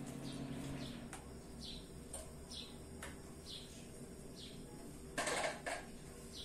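Small bird singing short falling chirps about once a second. About five seconds in there is a brief clatter as a cooking pot is set down on a portable gas stove.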